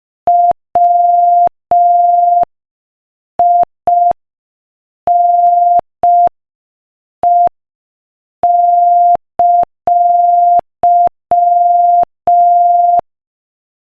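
Morse code sent as a single pure beeping tone at 5 words per minute, short and long beeps separated by silent gaps, spelling "WINE!" (W, I, N, E and an exclamation mark).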